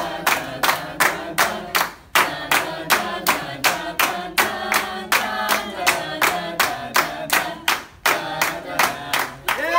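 A group of people clapping together in a steady rhythm, about three claps a second, with short breaks about two seconds in and near the end. Voices sing along under the claps.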